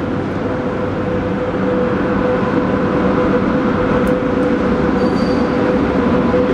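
Rumble of an approaching train hauled by a China Railways SS8 electric locomotive with 25T coaches, growing louder over the first couple of seconds, with a steady high tone held over it.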